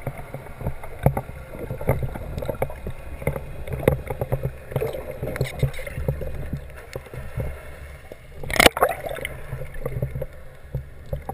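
Underwater sound picked up through a camera's waterproof housing: a steady low rumble with frequent irregular clicks and knocks, the loudest knock coming about eight and a half seconds in.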